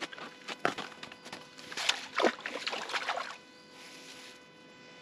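A collapsible wire-mesh fish basket on a nylon rope being handled and lowered into the water off rocks, with a few knocks, scrapes and some water sloshing. The sounds die down to a faint steady hiss about three seconds in.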